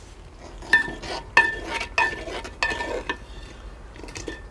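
A long metal ladle stirring thick chana dal in a metal pot, knocking against the pot. There are about five clinks, roughly one every half to two-thirds of a second, each ringing briefly.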